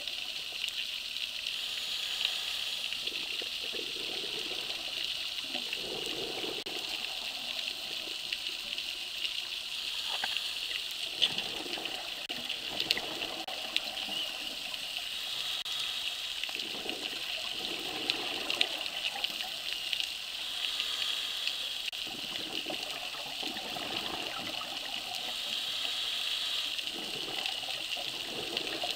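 Underwater sound of scuba breathing: a steady hiss, with bursts of rushing exhaled bubbles from a diver's regulator every five or six seconds.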